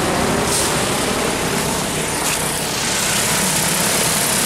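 DJI T40 crop-spraying drone's propellers running with a steady whir.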